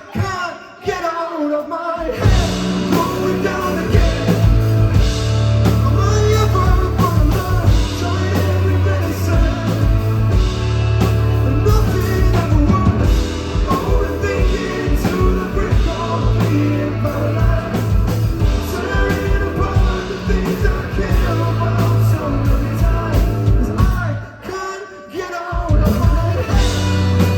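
Live rock band playing: after a brief pause the full band with drums, bass and electric guitar comes in about two seconds in, drops away briefly near the end, then comes back in.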